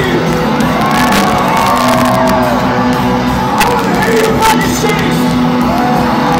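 Rock band playing live through a big outdoor PA, loud and steady, with the crowd shouting and whooping along.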